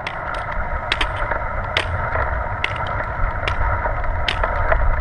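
Manual wheelchair wheels rolling over asphalt with a steady rumble and hum, and sharp clicks about once or twice a second as the hiking-pole tips strike the pavement.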